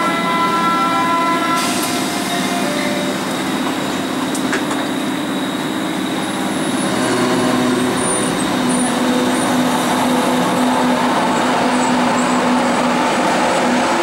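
Berlin U-Bahn A3-series small-profile train at the platform: steady whining tones from the standing train stop about a second and a half in, with a click then and another a few seconds later. The train then pulls out and runs past, a low motor hum setting in around six seconds and the rumble growing louder as the cars go by.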